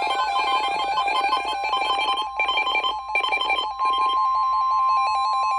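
Emergency Alert System transmission: bursts of harsh, fast-warbling SAME header data tones in three blocks with brief breaks. About two-thirds in they give way to the steady single-pitch 1050 Hz NOAA Weather Radio alert tone, which signals that a new weather alert is about to be read.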